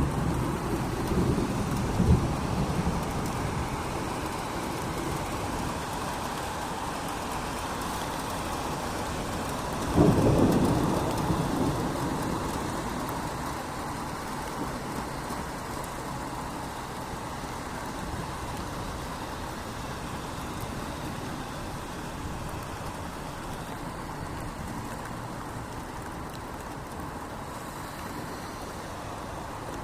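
Steady rain falling, with thunder rumbling at the start and a sharp thunderclap about ten seconds in that rolls off over a few seconds.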